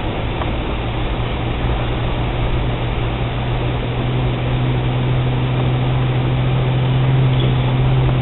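Suzuki XL-7's V6 engine and tyre noise heard inside the cabin while driving: a steady low drone that grows gradually louder over the seconds.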